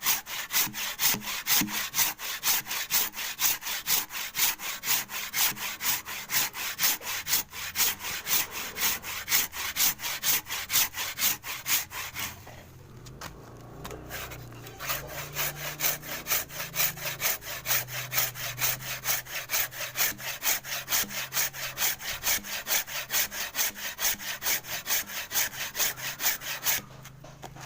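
Hand saw cutting wood in quick, even back-and-forth strokes, about three a second, stopping briefly about halfway through and again near the end. The saw's teeth are being tried out for sharpness.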